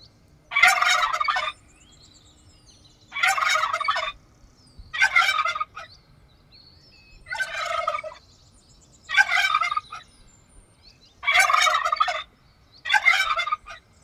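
Turkey gobbling: seven rattling gobbles of about a second each, coming roughly every two seconds.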